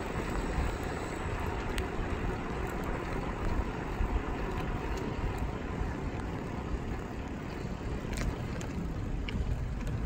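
Wind buffeting the phone's microphone, with the rumble of steady movement over asphalt and a few faint clicks.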